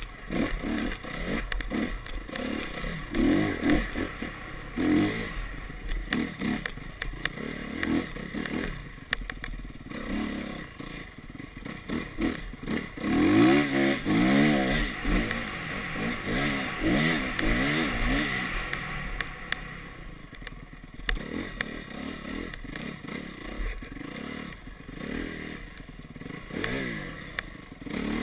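Honda CRF single-cylinder four-stroke dirt bike engine heard on board while riding. It revs up and down again and again as the throttle opens and closes, with a long rise in pitch about halfway through, and knocks from the bike running over rough ground.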